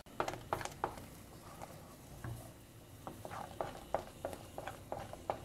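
A utensil stirring white sauce of milk and cornstarch in a pot on the stove, with irregular light taps and scrapes against the bottom of the pan. The sauce is thickening, stirred constantly to keep it from sticking.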